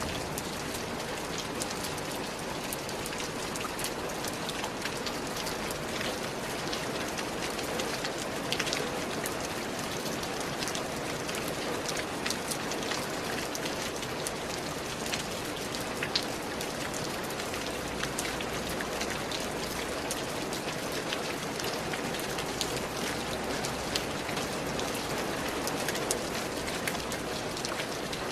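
Steady rain falling, a continuous hiss with many scattered drops ticking on a surface.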